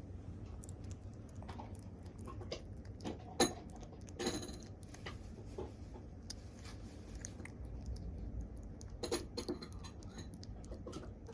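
Kittens playing in and around a basket: scattered soft clicks, scrapes and rustles, with a sharper knock about three and a half seconds in and a short burst of knocks near nine seconds, over a low steady hum.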